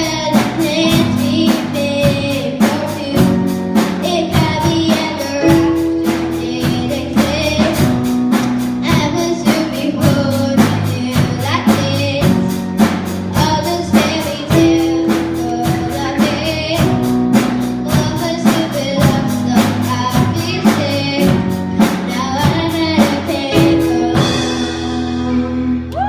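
Live band playing a pop song with sung vocals over piano, bass guitar and a steady drum beat. About two seconds before the end the beat stops and the band holds a final chord.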